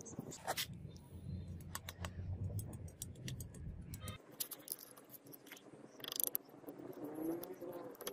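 Small clicks and taps of a steel bar wrapped in binding wire being handled. After about four seconds, soft scrapes and ticks of wet clay being spread over the wire-wrapped bar with a small blade.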